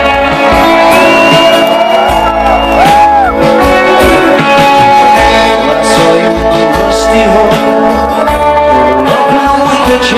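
Live rock band playing, loud and steady, with guitar to the fore, as heard from the crowd.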